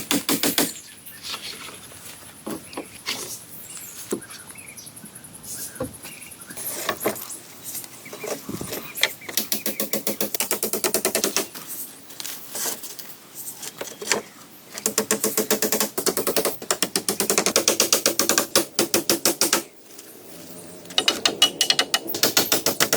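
Wood being worked with a hand tool: runs of rapid, evenly spaced sharp knocks, several a second, in bursts of a few seconds with quieter scattered knocks in between.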